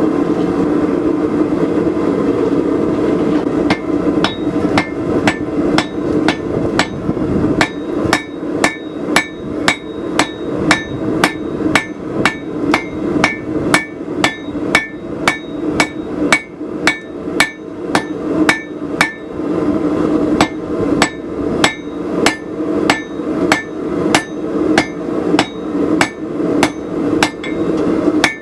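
Hammer blows ringing on the anvil, about two a second, as a san mai billet of wrought iron and high-carbon steel is forge-welded, the blows setting the welds. Under the blows runs the steady roar of the forge.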